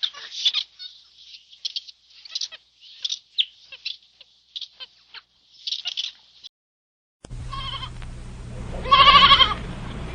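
Animal calls: a run of short, high-pitched squeaking calls in bursts for about six seconds, then after a short gap a different recording with a steady low hum and a single wavering bleat about nine seconds in.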